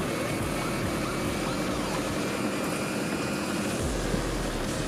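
An engine running steadily, with a low hum that grows stronger near the end.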